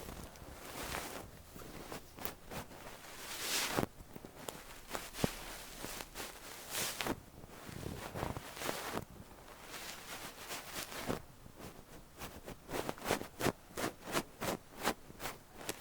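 Soft fluff brushed against a microphone's ear: airy rustling swishes, turning into quick, short strokes in the last few seconds.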